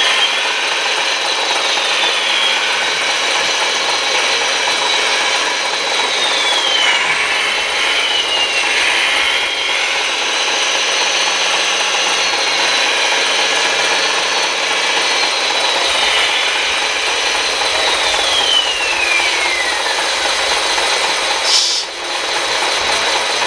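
Electric motors and gearboxes of RC construction models whirring, with whines that slide in pitch as the machines speed up and slow down, two long falling whines among them. The sound breaks off briefly near the end.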